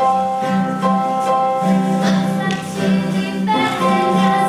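A group of children singing together in held notes, accompanied by acoustic guitar.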